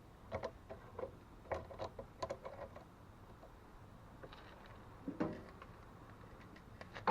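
Faint, scattered clicks and knocks of metal being handled as the freshly welded snowblower auger blade is twisted back into line. They come close together in the first three seconds, with one more knock about five seconds in.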